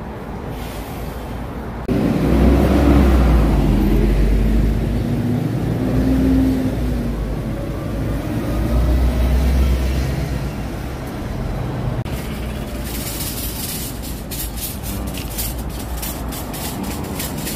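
City buses passing close by: engine and tyre rumble swelling twice, with a steady whining engine tone. Near the end, as the next bus pulls in, a hiss with rapid crackling.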